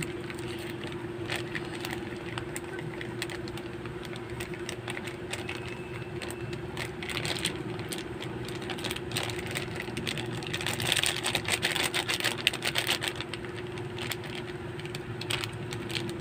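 Plastic sachet of breading mix crinkling and crackling as it is squeezed and shaken to pour the powder into a steel bowl, busiest about two-thirds through. A steady low hum runs underneath.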